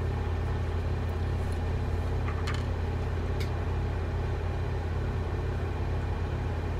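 Steady low hum in the room, with a few faint light clicks about two and a half and three and a half seconds in as the small parts of a spinning reel are handled.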